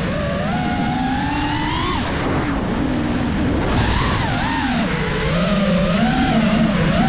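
Brushless motors of a 5-inch FPV freestyle quadcopter on 6S, whining with a pitch that swings up and down as the throttle changes. The pitch rises, falls sharply about two seconds in, then wavers and climbs again near the end.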